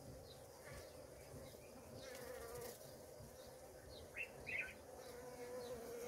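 Faint, steady hum of a honey bee colony buzzing inside the hive box, with a couple of brief high chirps about four seconds in.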